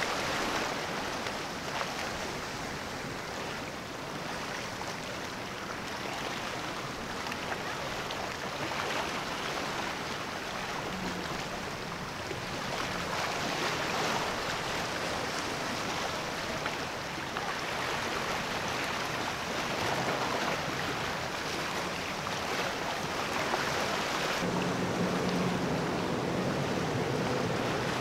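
Sea waves and wind making a steady rush, with the low, steady hum of a motor yacht's engines coming in near the end.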